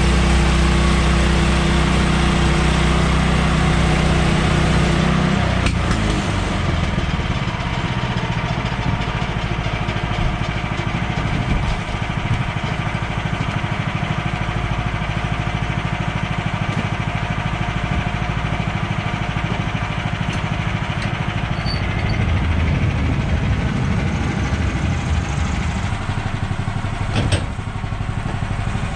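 Portable sawmill's gas engine running steadily. About five seconds in, its even note gives way to a rougher, busier sound that carries on for the rest of the stretch.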